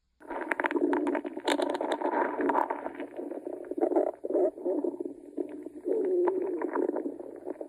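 Stomach growling: a long, gurgling rumble with crackly bubbling in its first few seconds, starting just after a moment of silence.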